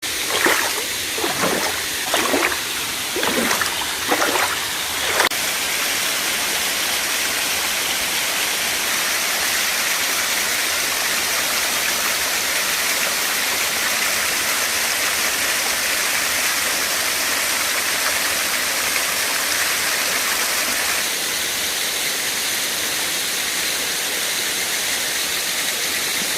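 Waterfall pouring steadily, a constant rushing hiss of falling water. A few short calls that rise and fall in pitch sound over it in the first five seconds.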